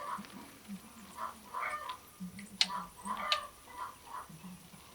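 Chickens clucking: a run of short calls and low, pulsed clucks, with two sharp clicks near the middle.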